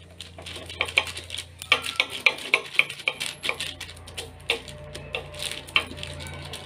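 Fingers patting and pressing thattai dough flat on a plastic sheet, giving irregular crinkling taps and clicks of the plastic, several a second, over a steady low hum.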